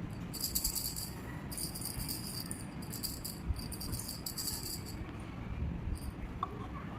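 A sound-box shaker being shaken in four bursts of dry, high rattling, stopping about five seconds in.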